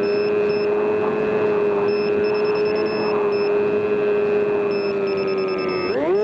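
RC model plane's motor and propeller whining at a steady high throttle. Near the end the pitch drops briefly as the throttle is eased, then climbs sharply again.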